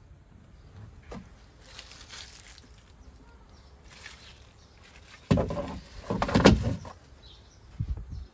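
Plastic-cased warning triangle in its plastic wrap being slid and knocked into a hard plastic trunk compartment: a second and a half of rubbing, crinkling and knocks about halfway through, then one short knock near the end.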